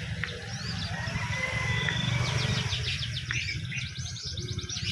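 Many caged songbirds chirping and trilling together, with rapid repeated trills and short whistled glides, over a steady low rumble.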